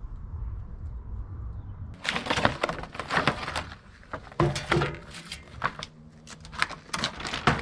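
A low, steady rumble, then from about two seconds in a rapid series of sharp clicks and crackles: the packaging and case of a folding utility knife set being handled and opened.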